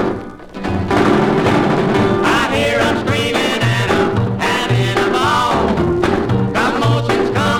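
Music from a 1958 country single: the band drops out briefly at the start, then comes back in with a steady bass and drum beat, and a lead melody enters about two seconds in.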